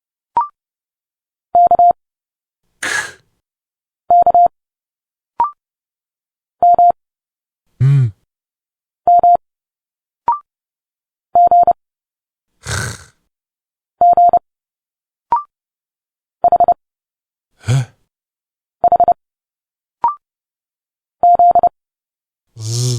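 Morse code characters sent at 30 words per minute as bursts of a steady beeping tone, each character played twice. After each pair comes a short spoken speech sound for the letter, some hissed and some voiced, and a brief higher blip marks the next letter.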